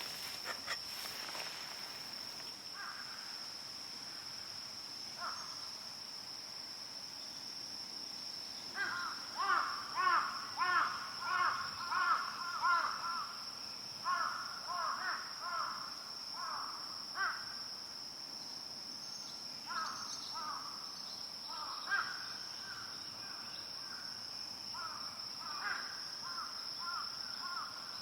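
A crow cawing in runs of short, quick calls, loudest and most rapid about nine to seventeen seconds in and returning near the end, over a steady high-pitched insect drone.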